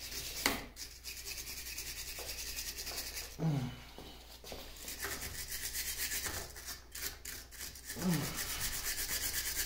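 Hand brush scrubbing loose, flaking paint off a cast-iron lathe pulley hub and shaft in quick back-and-forth strokes, with a short lull about four seconds in. The brush is getting worn out.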